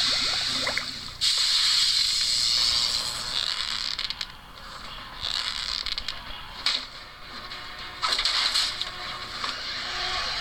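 Soundtrack of an animated fight video played on a TV and picked up in the room: music under loud hissing, splashing sound effects, strongest for the first three seconds and again about eight seconds in.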